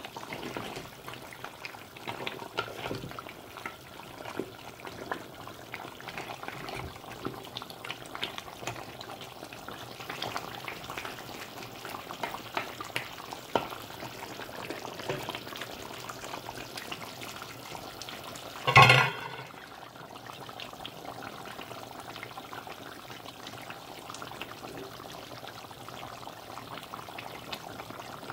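Deer-meat curry simmering in an uncovered pot, its still-watery gravy bubbling with frequent small pops and crackles. A single brief loud knock about two-thirds of the way through.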